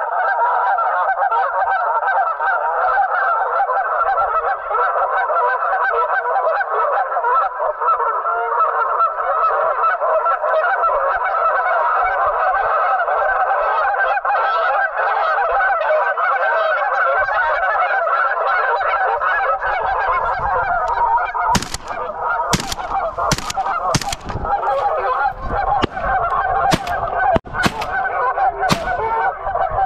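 A flock of geese honking continuously. About two-thirds of the way through, a quick string of about seven shotgun shots rings out over the calling as the geese are fired on.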